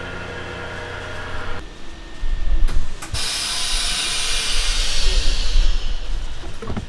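Fujee Vac HFV-600L chamber vacuum sealer finishing its cycle. The vacuum pump hums steadily and cuts off about one and a half seconds in, two clicks follow, and then air hisses back into the chamber for about three seconds, fading away.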